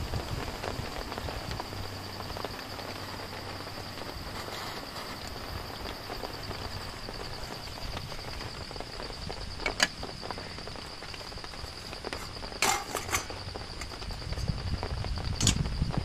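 Steady rain-and-forest background with a continuous high-pitched drone, broken by a few sharp clicks and taps as a mosquito coil is handled over a metal camp table: one about ten seconds in, a pair near thirteen seconds and one more near the end.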